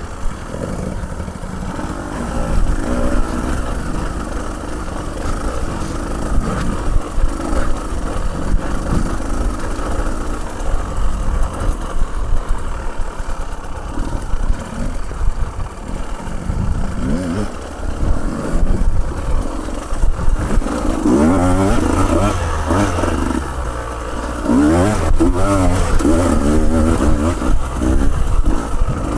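Motorcycle engine running while riding a rough dirt road, its pitch rising and falling with the revs, with a run of rev swings from about twenty seconds in.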